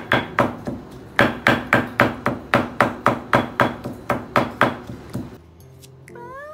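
Stone pestle pounding garlic, shallots and ginger in a stone mortar: steady sharp strikes, about three or four a second, stopping about five seconds in. A cat meows once near the end, rising then falling in pitch.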